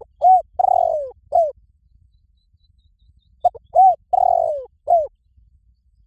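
Spotted dove cooing: two phrases about three and a half seconds apart. Each phrase is four notes: a short note, an arched note, a longer falling note and a final arched note.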